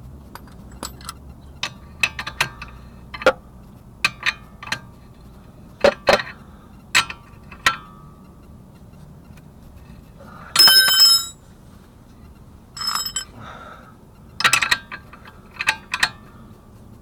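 Metal hand tools clinking and clanking against each other, about a dozen sharp strikes that ring briefly, with the loudest, longest ringing clatter about ten and a half seconds in.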